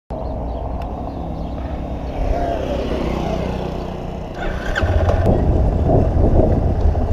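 Motorcycle engine running while riding along a street, getting louder and heavier about five seconds in.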